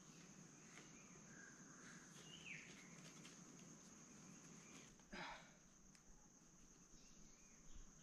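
Near silence: forest ambience with a steady high-pitched insect drone. Faint bird chirps come around two seconds in, and one brief, slightly louder sound about five seconds in.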